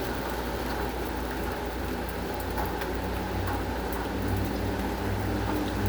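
Light to moderate rain falling on concrete: a steady, even hiss of raindrops. A low steady hum comes in about four seconds in.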